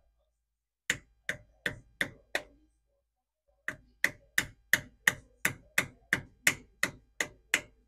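Hammer tapping a tool set against a tab of the wheel-bearing lock washer, bending it over the 54 mm spindle nut on a 100-series Land Cruiser front hub. Five sharp strikes at about three a second, a short pause, then about a dozen more at the same steady pace.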